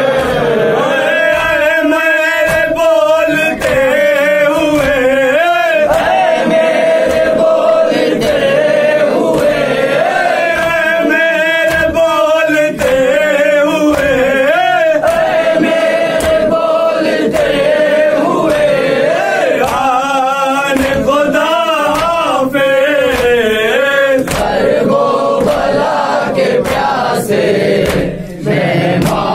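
Men chanting a nauha, a Shia lament: a lead male voice with wavering held notes, joined by the group. Underneath runs a steady beat of sharp strikes, the mourners' matam, hands beating on chests.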